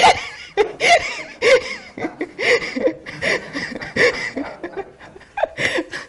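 People laughing in repeated short bouts that die down near the end.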